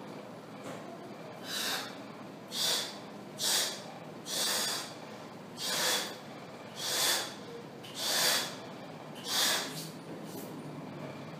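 A person blowing up a latex balloon by mouth: about nine short, hissing breaths, roughly one a second.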